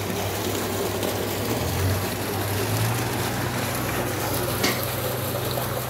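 Water gushing and churning into a concrete tank, a steady rushing with a low steady hum underneath.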